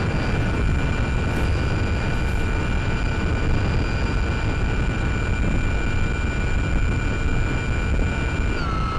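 Brushless electric motor (Sunnysky 1240kv) spinning an 8x6 propeller on a Mini Talon FPV plane in cruise, a steady whine of several tones over a rush of wind noise. Near the end the whine dips in pitch for under a second, then comes back up.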